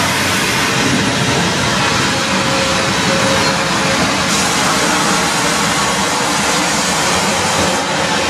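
Sawmill log step feeder running, its steel steps lifting logs one stage at a time, heard as a loud, steady mechanical din with no pauses.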